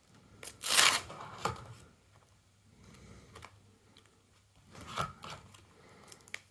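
Trading cards being slid out of plastic binder pocket sheets: a sharp rustle of plastic about a second in and another near five seconds, with quieter rubbing and scraping between.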